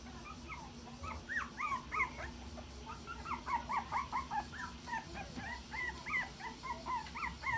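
Toy poodle puppies, nearly a month old, whimpering in a quick run of short, high squeaks. Each squeak rises and falls in pitch, several a second, starting about a second in.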